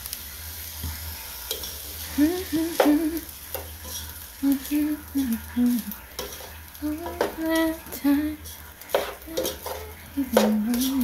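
A slotted spatula stirring and scraping fried rice around a nonstick pot, with clicks of the spatula against the pot and the rice sizzling underneath. A person's voice is heard briefly now and then.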